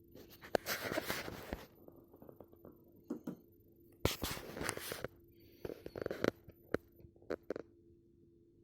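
Irregular scraping and rustling with sharp clicks, in about five short clusters, over a faint steady hum: the sound of hands handling and fitting parts, as in reassembling a TV.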